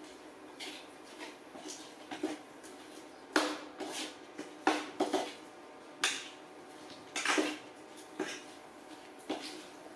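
A metal cooking utensil clinking and scraping against a pot on the stove, in about a dozen irregular short knocks.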